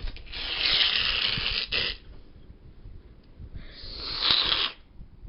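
A person hissing like a snake: two long hisses, the first about a second and a half, the second a little shorter, with a pause between.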